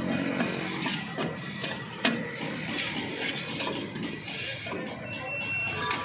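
Brake drum of a Toyota Hilux Revo rear brake clicking and scraping against the shoes and hub as it is twisted and worked off by hand. There is one sharp metallic knock about two seconds in.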